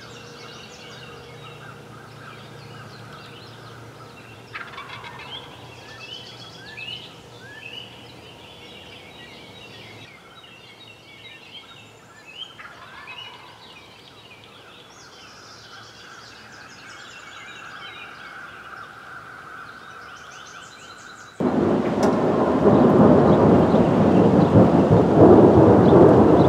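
A wild turkey tom gobbling a few times among chirping songbirds. About 21 seconds in, this cuts suddenly to the loud, dense rush of a thunderstorm, heavy rain with rumbling thunder.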